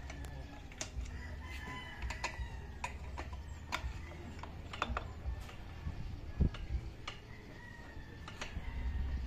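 Scattered clicks and taps of hands working a seat-lock cable and plastic parts at the front of a Suzuki Smash 115 underbone motorcycle. Faint drawn-out bird calls sound in the background twice.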